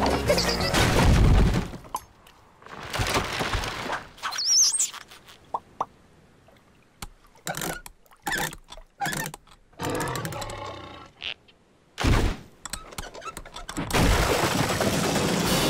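Cartoon sound effects: a run of short wooden knocks and thuds, a brief high squeak, and one heavy thud about twelve seconds in. Background music plays before and after them.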